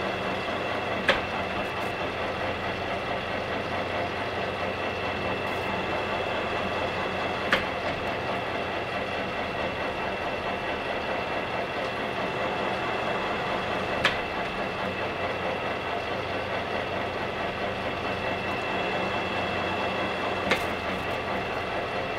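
Engine lathe running steadily while single-point cutting a 20-threads-per-inch thread, its motor and gearing giving a steady hum with a few fixed whining tones. Four sharp clicks come about six and a half seconds apart, one per threading pass.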